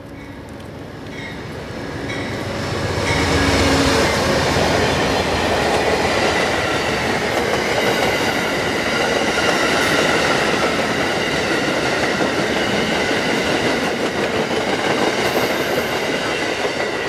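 Amtrak passenger train passing close by: the GE P42 diesel locomotive approaches and goes by loudly about three to four seconds in, then the stainless-steel coaches roll past with a steady rumble of wheels on the rails and high-pitched ringing tones over it.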